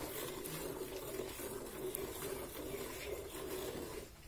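Hand milking a cow into a steel bucket: jets of milk squirting into the pail in a steady rhythm, about two squirts a second as the hands alternate, with a brief pause near the end.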